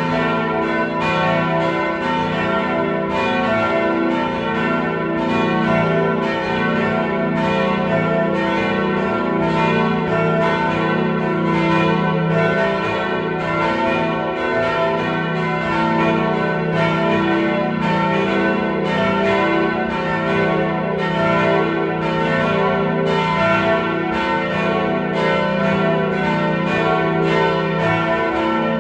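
Full peal of four church bells tuned E, F-sharp, A and B, the oldest cast in 1475, all swinging together. Their strokes overlap at about two to three a second over a continuous ringing hum.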